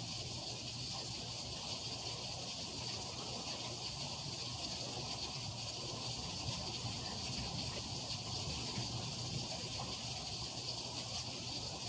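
Heavy rain pouring steadily, an even hiss.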